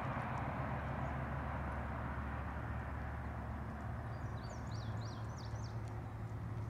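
Freight train cars rolling past on the rails: a steady low rumble. A few short high chirps come about four to five seconds in.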